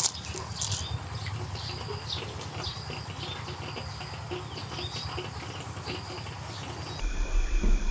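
Outdoor ambience of many short bird-like chirps over a thin, steady high insect drone, with a faint low rumble beneath; the background changes abruptly about seven seconds in.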